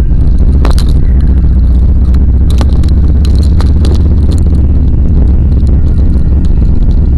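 Car driving, heard from inside the cabin through a dashcam microphone: a loud, steady low road and engine rumble, with scattered light clicks and rattles, several of them about two to four seconds in.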